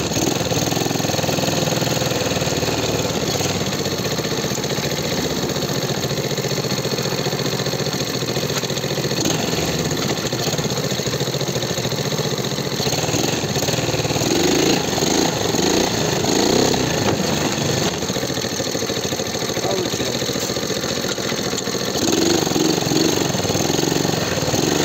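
Small vehicle engine running steadily on a test run after repair, revving up around fifteen seconds in and again near the end.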